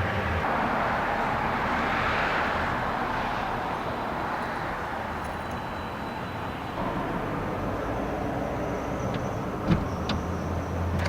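A road vehicle running, its noise swelling and then easing off, with a steady low hum and a few clicks in the last couple of seconds.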